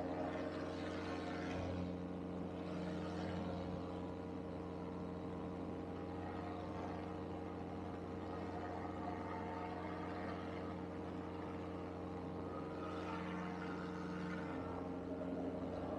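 Polini Thor 130 single-cylinder two-stroke paramotor engine and propeller running steadily in flight at one even pitch, the engine running well on a new stator, ignition coil and spark plug. Wind rushes over the microphone about a second in and again near the end.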